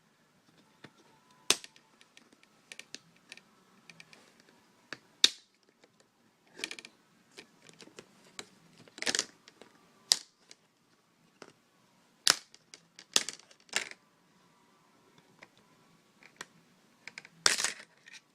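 Plastic screen bezel of an Acer Aspire One netbook being pried off around its edge: a series of sharp, irregular snaps and clicks as the clips let go, with light scraping and handling of the plastic in between.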